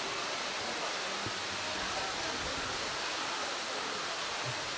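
Steady rushing background noise, even and unbroken, with no distinct events.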